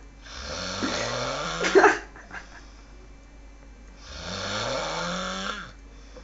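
A person snoring heavily: two long, rasping snores about four seconds apart, each rising in pitch, the first ending louder.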